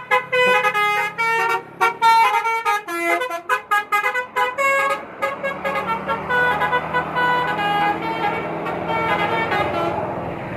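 Basuri musical bus horn playing a telolet tune: a quick run of short toots that jump between pitches, then longer held notes for the second half. A bus engine running underneath.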